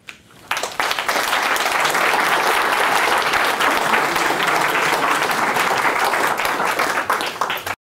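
Audience applauding, a dense steady patter of many hands that starts about half a second in and cuts off suddenly near the end.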